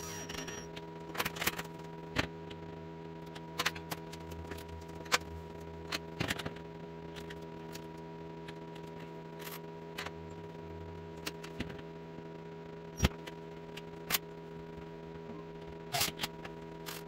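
Scattered sharp clicks and light knocks, about a dozen of them, from hands handling trim pieces and tools while mounting a slat wall, over a steady hum.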